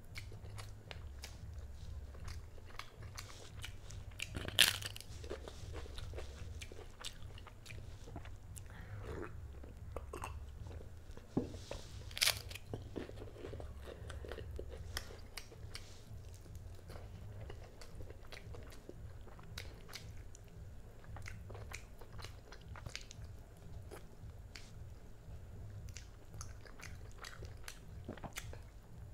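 Close-miked eating: a person chewing mouthfuls of rice, chicken curry and fried egg eaten by hand, with small wet clicks and crunchy bites. Two sharp, loud crunches stand out, about four and a half and twelve seconds in.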